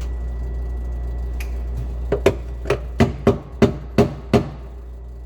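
A hand bumps a refrigerator's control panel housing in a run of about ten sharp knocks, roughly three a second, starting about two seconds in. Over a steady low hum from the running fridge, the overall level drops partway through the knocking. The bumping is a test of an intermittent cooling fault that the owner suspects is a short in the control panel.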